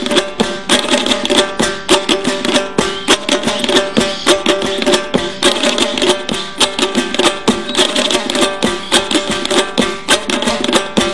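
Instrumental Afghan folk music: a plucked string instrument plays a quick melody over a steady, fast drum rhythm.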